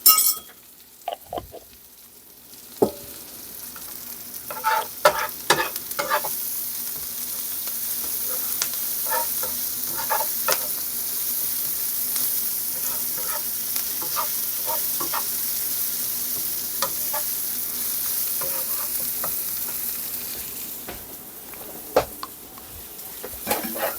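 Fried rice sizzling in a hot pan while it is stirred and tossed with a spatula, the hiss swelling a few seconds in and easing near the end. Scattered scrapes and knocks of the spatula against the pan, a few of them louder.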